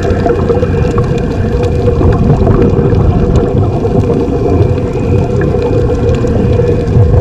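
Steady underwater rumble with gurgling air bubbles, heard through a camera housing under water.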